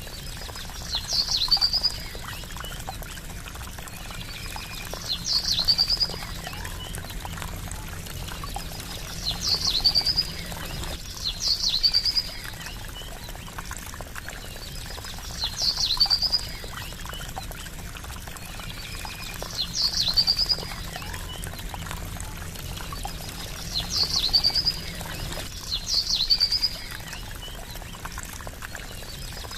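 Trickling running water with a short, high chirping call repeating about every four seconds, each call a quick falling run of notes and the loudest sound present.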